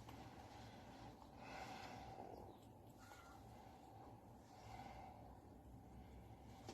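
Very faint, soft breaths or sniffs from a cat, a couple of them, over near silence.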